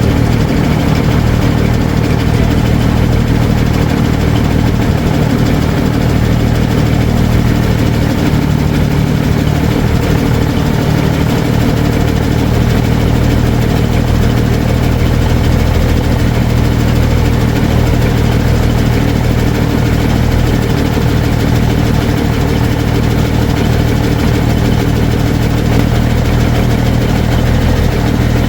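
Big Cam Cummins inline-six diesel in a Peterbilt idling steadily, running on its freshly rebuilt PT fuel pump.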